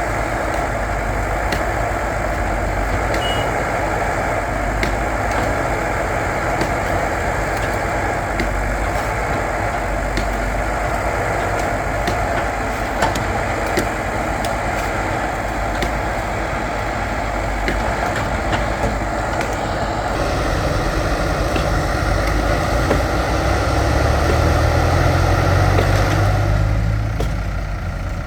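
Diesel engine of a backhoe loader running steadily while it works, with scattered small clicks and knocks. Near the end the engine note deepens and gets louder, then the higher part of the sound drops away.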